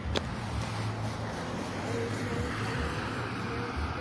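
Road traffic passing close by: a steady low rumble of car engines and tyres, with one sharp click just after the start.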